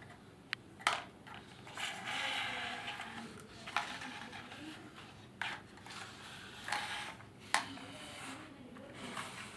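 A few sharp clicks and knocks, scattered irregularly, with a stretch of scratchy noise about two seconds in, as of small hard objects being handled.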